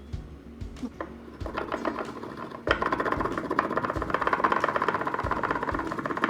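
Sweet flag (baje) root rubbed hard with a little water to grind it into a paste: a rapid, even scraping rub that sets in loudly about two and a half seconds in, after a few soft knocks.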